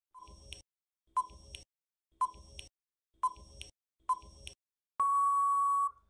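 Quiz countdown timer sound effect: five short beeps about a second apart, then one long steady beep lasting about a second as the time runs out.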